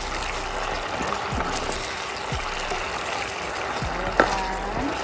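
Thickened lemon sauce bubbling and sizzling in a wok while fried chicken pieces are stirred through it with a wooden spatula, with a few light knocks of the spatula and a sharper one about four seconds in.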